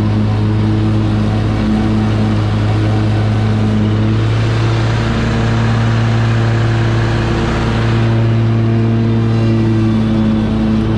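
Kubota 725 mower's engine running steadily under mowing load, a constant droning note that shifts slightly in pitch about four to five seconds in.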